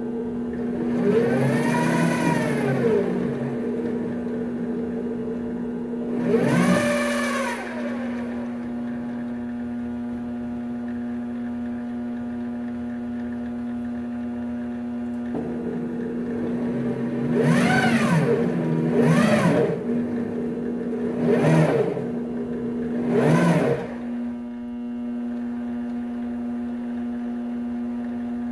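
Grizzly G0765 mini-lathe running with a steady hum while its CNC stepper motors drive the carriage in several short moves, each a whine that rises and then falls in pitch as the axis speeds up and slows down. The moves come about a second in, about six seconds in, and in a quick series from about seventeen to twenty-four seconds in.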